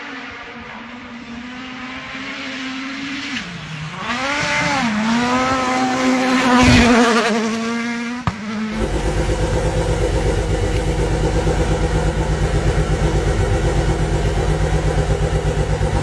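A rally car's engine at full speed on a gravel stage, its note rising and falling as it comes closer and passes, loudest as it goes by. After a sudden cut, a stationary rally car's engine runs with a fast, even pulsing.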